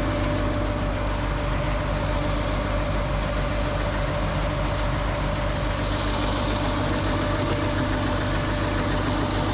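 John Deere farm tractor's diesel engine idling steadily, with a thin, steady whine above the engine note.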